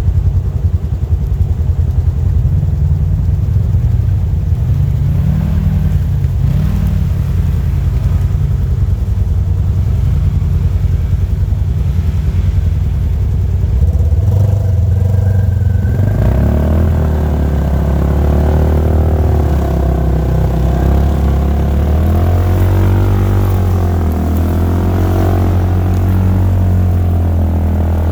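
Polaris RZR side-by-side's engine running continuously; a little past halfway the engine note gets louder and busier, with the pitch rising and falling as the throttle changes.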